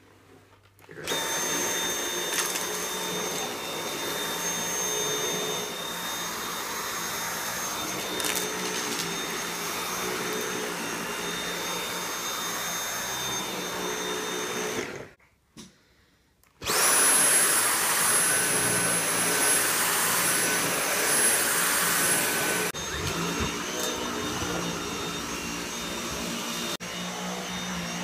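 Dyson V8 cordless stick vacuum running on carpet with its motorised brush-bar carpet head: a steady motor whine over the noise of the brush and suction. It cuts out about fifteen seconds in and starts again, louder, a second and a half later.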